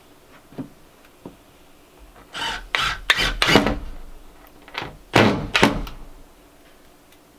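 Cordless drill driving screws into a wooden panel, in several short runs of a fraction of a second each, in two groups, with a couple of faint clicks before.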